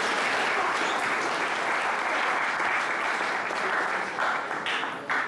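Audience applauding, a steady sustained clapping that thins out near the end.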